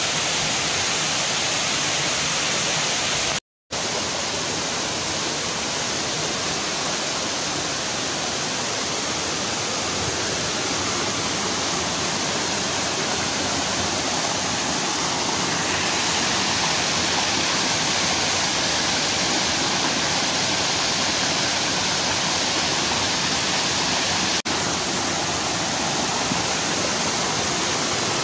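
Steady rush of a waterfall and a rocky stream cascading over boulders, with a brief cut to silence about three and a half seconds in. The rush turns brighter and hissier about halfway through.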